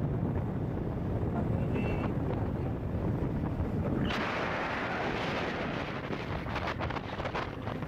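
Wind rushing over the microphone of a camera on a moving motorcycle, over a low rumble of the ride. About four seconds in, the rush turns louder and hissier and buffets unevenly.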